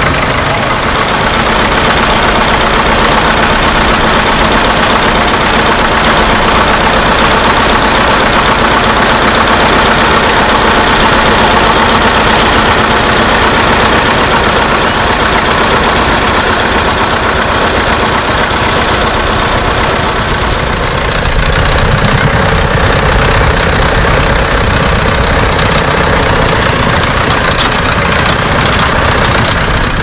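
Vintage farm tractor engine running steadily and loudly close by, with its low rumble growing heavier about two-thirds of the way through.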